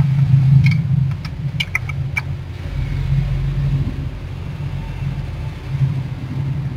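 Opened-up Epson L120 inkjet printer powered on and running its start-up cycle: a low, pulsing motor hum with a few sharp clicks in the first two seconds.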